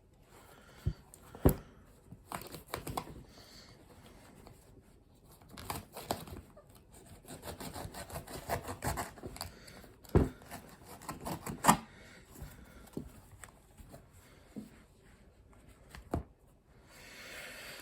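Hollow-ground pocket knife blade sawing and slicing through an old shoe, with irregular scraping, tearing strokes and a few sharp knocks. The blade catches and binds in the material.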